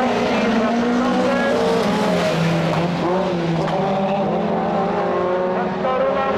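Several Super 1600 rallycross cars' 1.6-litre engines running hard, their pitches overlapping and sliding up and down as the cars accelerate, shift and lift for corners.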